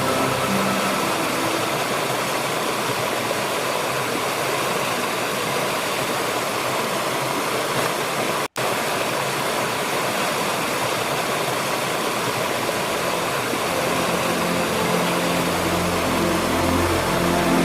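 Rushing water of a stream or waterfall, a steady even hiss, broken by a split-second dropout about halfway through. Low steady tones come in faintly near the end.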